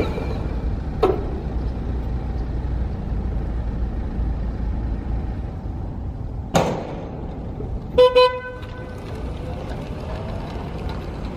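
A vehicle horn gives two short, high beeps about eight seconds in, over a steady low rumble. Sharp knocks come about a second in and shortly before the beeps.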